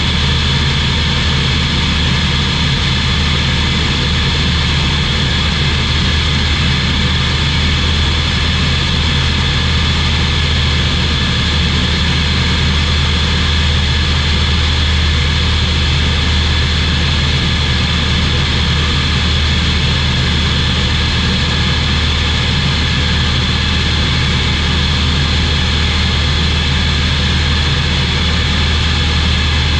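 Engine and propeller of a SportCruiser light aircraft running steadily in flight: a loud, even drone with a strong low hum and a stack of steady higher tones, unchanging throughout.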